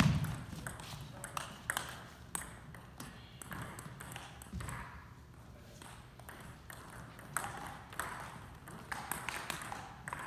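Table tennis ball clicking sharply off paddles and the table in quick, irregular strokes, with a heavy thump at the very start.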